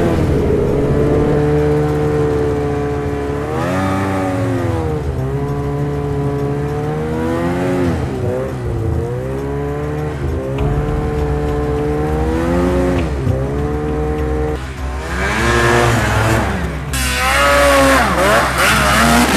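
Snowmobile engines revving up and down again and again, the pitch rising and falling with the throttle over a steady low hum. The loudest, hardest revving comes in the last few seconds.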